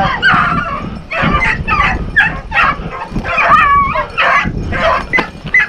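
A pack of rabbit hounds baying while running a rabbit's trail: a steady string of short cries, about two or three a second, with a longer wavering bawl about midway.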